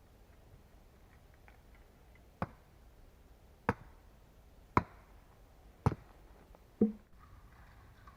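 Five sharp chopping strikes of a tool on wood, about a second apart. The last strike is duller, with a short low ring.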